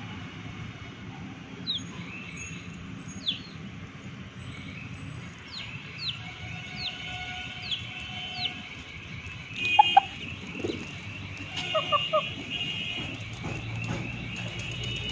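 Chicks peeping: a string of short, high peeps that fall in pitch, with a few louder, lower chicken calls about ten and twelve seconds in.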